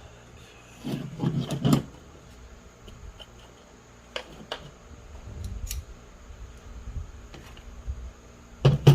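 Clicks and knocks of small metal parts being handled and fitted together while reassembling an automatic-transmission shifter: a short cluster about a second in, a few single clicks in the middle, and a louder knock near the end.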